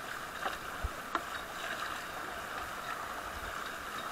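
Steady rush of white water through a river rapid, with paddles dipping and splashing beside an inflatable raft; a few short, sharp paddle knocks or splashes stand out about half a second and a second in.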